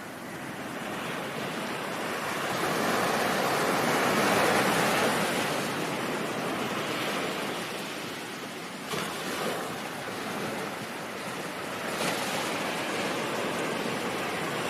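Ocean surf: a wave swells to its loudest about four seconds in and washes back, then smaller surges near nine and twelve seconds.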